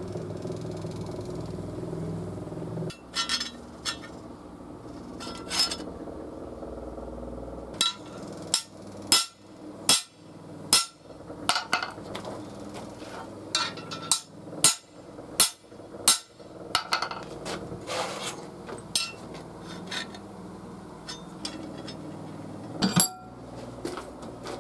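A drill press spinning a polishing wheel hums steadily against the cleaver's blade and stops about three seconds in. Then comes a long series of sharp knocks, about one or two a second at the busiest, as the cleaver's edge is chopped down through folded newspaper onto a wooden workbench, ending with one louder knock near the end.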